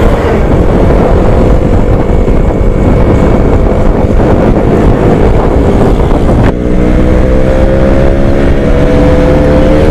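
A vehicle engine running at road speed under heavy wind noise on the microphone. About two-thirds of the way through there is a short click and a brief dip, then the engine note climbs slowly as it accelerates.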